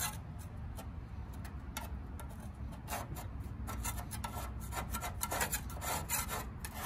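Grass Buster deck scraper scraping clumped grass off the underside of a mower deck around a spindle, in a fast run of short, irregular strokes.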